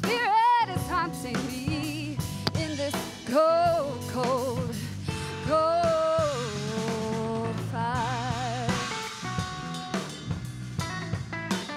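Live rock band: a female lead singer holds long sung notes with vibrato over electric guitar, electric bass and a drum kit.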